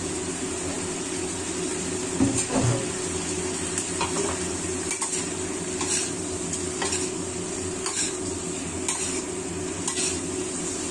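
Metal spatula scraping and knocking against a steel wok as fish is stir-fried in a sizzling sauce. Sharp clicks of the spatula come about once a second over a steady sizzle, with the loudest knocks about two seconds in.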